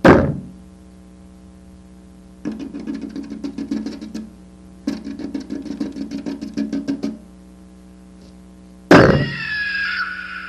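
Sound-effect track over a steady electrical hum. It opens with a sudden loud hit, then has two runs of rapid clicking at about eight clicks a second, each lasting about two seconds. Near the end comes a second loud hit, followed by a short wavering whine.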